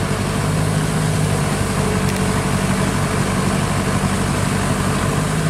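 Diesel engines of an excavator and Kubota combine harvesters idling, a steady low hum with no revving.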